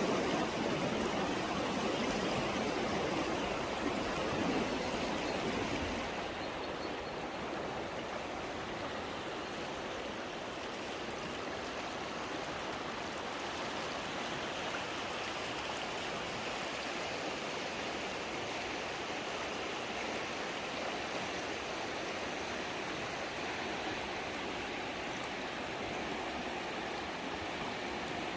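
Steady rushing of stream water, an even hiss with no distinct events; a little louder and fuller for the first six seconds or so, then steady.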